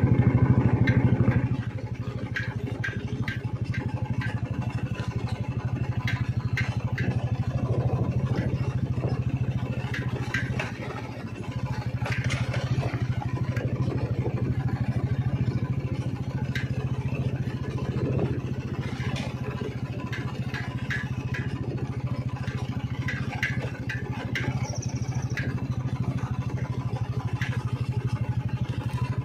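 An engine running steadily, with a brief drop near the middle and scattered short ticks over it.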